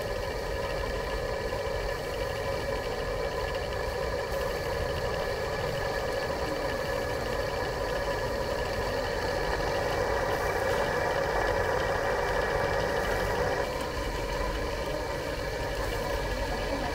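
A steady motor hum with a low rumble and light hiss, a little louder around the middle.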